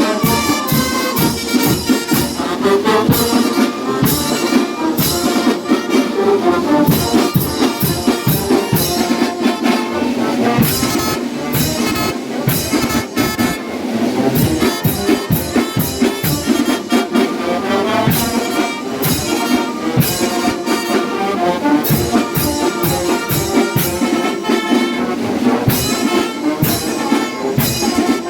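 Brass band playing: trumpets and trombones over a steady beat of drums and cymbals.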